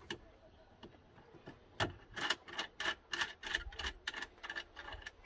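Light metallic clicking and rubbing from hands working a cable's ring terminal and nut onto a bus bar's stud, with a quick run of about four or five small ticks a second for a couple of seconds in the middle.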